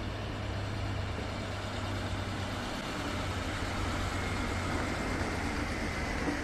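Alstom Coradia LINT diesel multiple unit passing at low speed, its underfloor diesel engine running with a steady low drone over rolling noise and a faint whine that rises in pitch over the second half.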